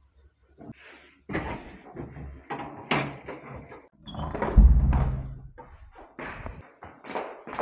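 A wooden room door being handled: the handle turned, the door opened and pulled shut with a heavy thud about four and a half seconds in. Clothes rustle and clatter around it as the bundle is carried out.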